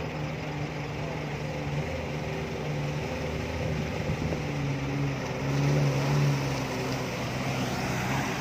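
Suzuki Jimny 4x4's small engine running under load as it wades through a river and climbs out onto a muddy bank, revving harder about two-thirds of the way in, with water sloshing around the wheels.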